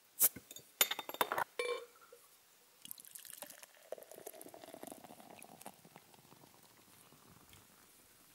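A metal bottle opener clicks against a glass beer bottle's crown cap several times in quick succession as it prises the cap off. Beer is then poured from the bottle into a beer glass. The pour is loudest for a couple of seconds, then goes on as a softer, thinner trickle with the foam rising.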